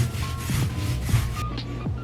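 Background music with a steady beat: deep falling kick-drum thumps over a held bass, quick hissy percussion and a short melody line.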